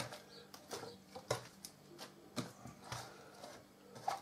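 Faint, scattered crisp rustles and light taps of an iceberg lettuce being handled on a cutting board as its outer leaves are pulled off.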